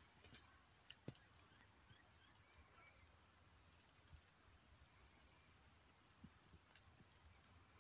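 Faint insect trill: a steady, high-pitched pulsing chirr, with a few soft clicks.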